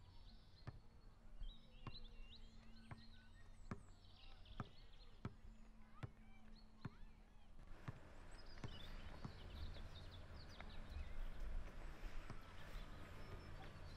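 Quiet ambience with soft ticks about once a second and faint high bird chirps. About eight seconds in, the background rises into a steady hiss with a low hum.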